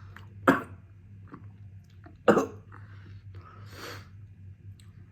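A person coughing twice, about two seconds apart, with a softer breathy sound after the second cough.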